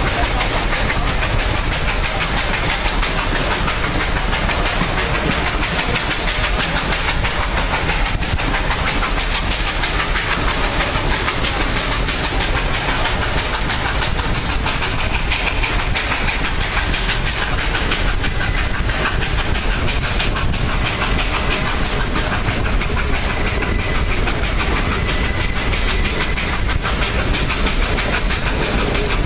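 A steam-hauled excursion train rolling steadily along the track, heard from aboard one of its cars: continuous wheel-and-rail running noise.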